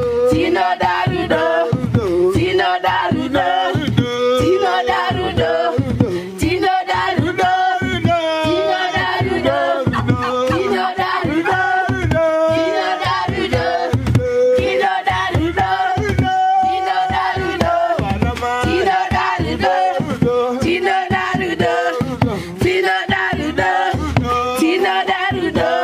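A group of voices singing a song together over a steady drumbeat.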